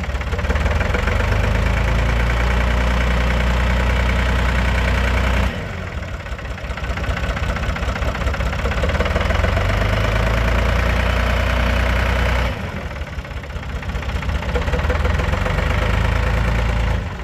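1970 Ford 4500 loader backhoe's engine running steadily at idle, its level stepping abruptly down and back up a couple of times.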